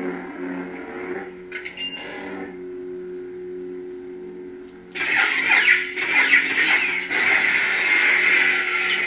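Sabertrio CFX lightsaber playing KSith's "The Light" sound font: a steady pitched hum with a few brief clicks about two seconds in, then about five seconds in a much louder rushing effect with sliding pitches takes over and carries on.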